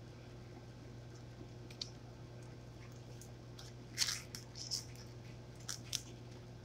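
A table knife cutting through crisp toast on a plate: a crunchy crackle about four seconds in, then a few shorter crackles, over a steady low room hum.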